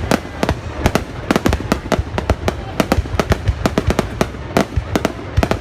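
Fireworks going off in a rapid, irregular run of sharp bangs, several a second, over a steady low rumble.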